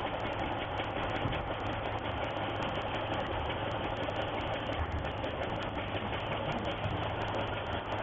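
Factory machinery running steadily, a constant mechanical noise with a low hum underneath.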